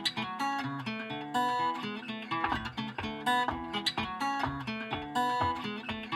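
Acoustic guitar music, plucked and strummed notes over a bass line, played back through a car audio system with newly fitted Infinity speakers.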